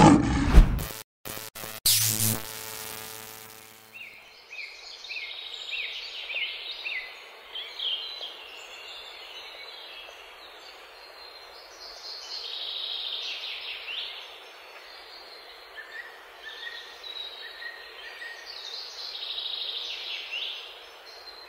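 Songbirds chirping and singing in many short calls over a faint steady hiss. Before the birds begin, about four seconds in, there are a few loud low thumps and a swelling pitched tone.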